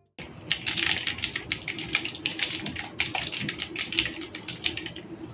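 Fast typing on an Aula F3018 mechanical keyboard with clicky blue switches, a dense run of key clicks with a short pause about three seconds in.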